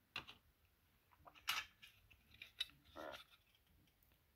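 Hard plastic model kit parts clicking and scraping as they are handled: a handful of short, light clicks and rubs, the loudest about a second and a half in.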